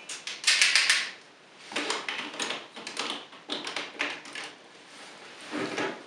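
Hard plastic parts of a DX Gigant Kishiryu-Oh combiner toy clicking and rattling as they are handled and pegged together, in quick clusters of clicks; the loudest burst comes about half a second to a second in.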